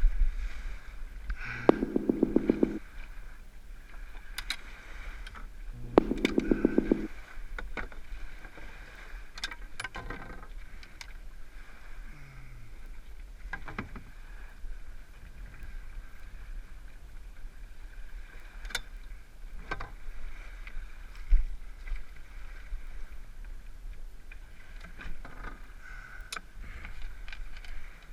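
A canoe being paddled, with scattered knocks and clicks of the paddle and gear against the hull. Two short bursts of rapid rattling come about two seconds and six seconds in.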